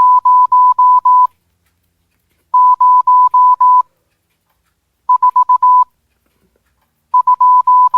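Alexa smart speaker beeping out the UTC time in Morse code: a single steady high tone keyed on and off, in four groups of five beeps with pauses of about a second between groups. The first two groups are long dashes, the third short dots, and the last starts with a dot followed by dashes, each group a digit of the time.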